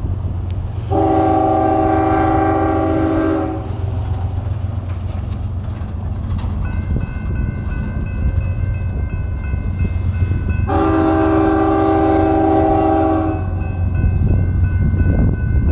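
BNSF freight locomotive horn sounding two long multi-note chord blasts, about a second in and again about eleven seconds in, warning for a grade crossing. The crossing's warning bell starts ringing about seven seconds in and keeps ringing over a low rumble.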